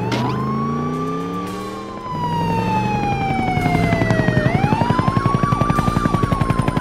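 Cartoon ambulance siren wailing: each cycle sweeps quickly up in pitch and then slides slowly down, twice. It plays over background music that picks up a fast beat about two seconds in.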